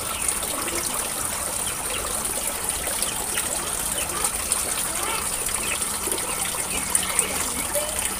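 Water streaming from a PVC pipe into a tarpaulin fish pond, a steady trickling and splashing on the water surface.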